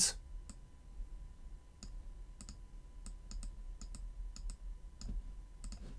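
Computer mouse clicking: about a dozen light clicks, several in quick press-and-release pairs.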